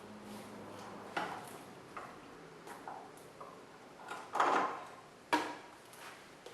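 Scattered metal knocks and clicks from motorcycle front-wheel parts being fitted: a few light taps, then a longer scraping clunk about four and a half seconds in and a sharp knock just after it.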